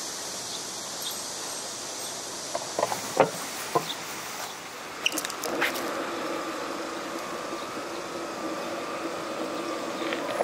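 Longboard wheels rolling over stone paving slabs, with sharp clacks as they cross the joints between the slabs. About halfway through a steady rolling hum sets in.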